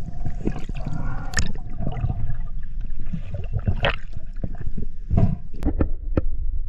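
Underwater audio from a diving camera: a steady low water rumble with gurgling bubbles and scattered sharp knocks and clicks.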